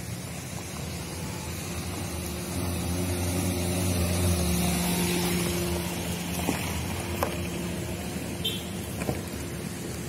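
A motor vehicle's engine hum on the road, growing louder to a peak about four seconds in, then easing off. A few faint clicks in the second half.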